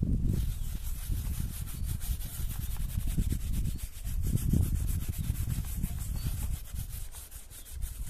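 Rapid, repeated rubbing strokes on a leather saddle as it is wiped and oiled by hand. The strokes ease off near the end.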